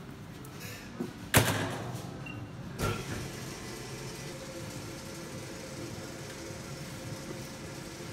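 A sharp metal clang about a second and a half in, with a smaller knock a moment later, as the spiral mixer's wire safety guard is closed over the bowl. The mixer then runs with a steady hum and a faint steady tone.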